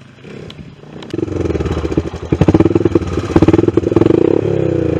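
ATV (four-wheeler) engine close by, opening up suddenly about a second in and running hard at high revs with rapid firing pulses, easing off slightly near the end.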